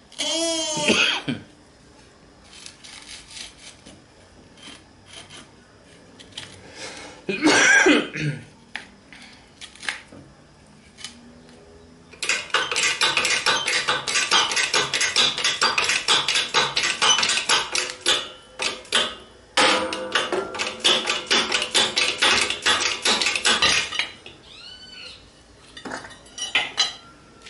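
Metal-on-metal clicking and clattering as a worn ball bearing is worked off an electric motor's rotor shaft in a steel bench fixture. Two brief ringing scrapes come near the start and about eight seconds in, then a long run of rapid clicking lasts about twelve seconds in the second half.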